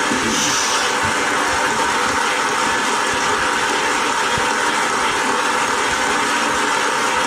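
Crowd applauding, heard through a television's speaker.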